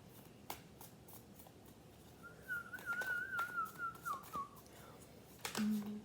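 A high warbling whistle lasting about two seconds in the middle, its pitch wavering quickly up and down and dipping at the end, among scattered light clicks and taps.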